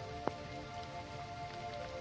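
Heavy rain falling steadily on a road, with one sharp tap about a quarter second in. Soft sustained tones sit under the rain and shift slightly near the end.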